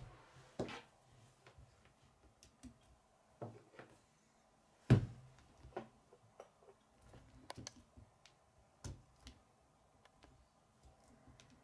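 K'nex plastic rods and connectors clicking and snapping together, with scattered knocks of the plastic model against a wooden table; one sharp knock about five seconds in is the loudest.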